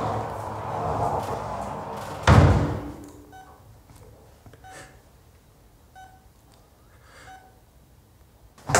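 A hospital room door shuts with a heavy thud about two seconds in. After it, a patient monitor beeps softly at a steady pace, about once every second and a quarter. A sudden loud noise cuts in near the end.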